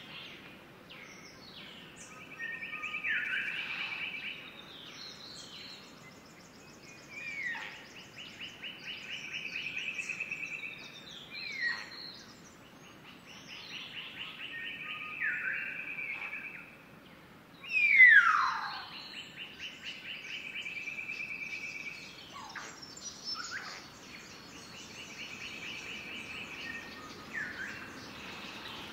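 Birds singing: rapid trills of about two seconds alternating with sharp downward-sliding calls, repeated every few seconds, the loudest call about two-thirds of the way through.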